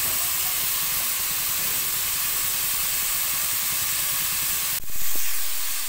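Small parboiled potatoes sizzling steadily as they fry in hot oil in a wok, browning. A single sharp click comes a little before the end.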